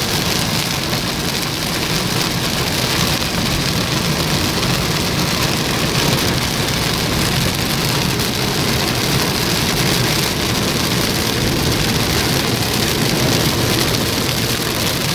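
Heavy rain on a moving car and its tyres on the wet road, heard from inside the cabin: a steady, unbroken hiss.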